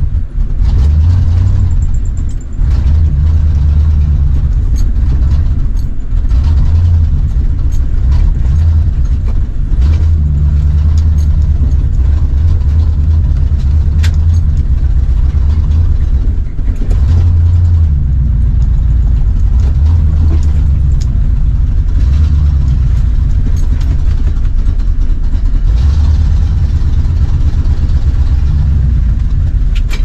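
Square-body pickup plow truck's engine heard from inside the cab while driving slowly, a loud low drone that rises and falls unevenly with a few brief dips; the owner says the engine is starving for fuel.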